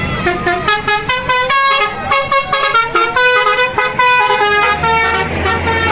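Tour bus basuri 'telolet' multi-tone air horn playing a quick melody of short stepped notes. Near the end the horn stops and a low engine hum carries on.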